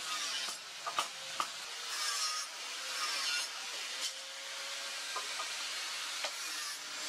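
A few light metallic knocks and clinks as a steel motorcycle brake disc is handled with tongs on an anvil, over a steady rushing hiss from the forge.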